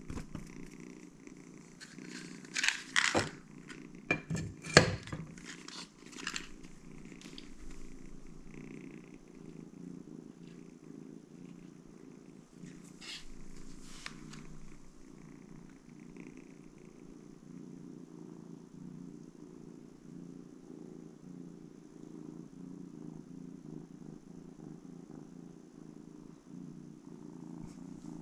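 Domestic cat purring steadily, close by. A cluster of sharp glass clinks and knocks at about three to five seconds in, and a couple more later, as the glass chimney is fitted onto the kerosene lamp's metal burner.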